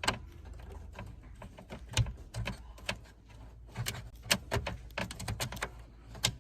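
Irregular small plastic clicks and taps, about ten of them, from a bulb socket being twisted by hand in a car's interior roof-light housing.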